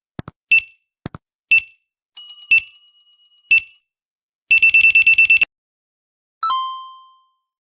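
Quiz countdown-timer sound effect: a short high beep about once a second, with a couple of sharp clicks, then a rapid run of about eight beeps like an alarm clock as time runs out. A single bell-like ding follows and fades away.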